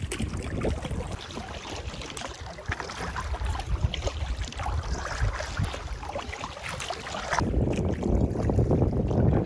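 Canoe paddling: a paddle dipping and splashing in the lake water, with wind on the microphone. About seven seconds in, the wind noise gets louder.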